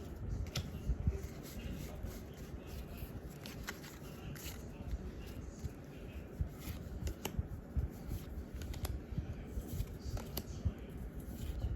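Pokémon trading cards being handled and slid one past another, with scattered light clicks and rustles over low handling noise.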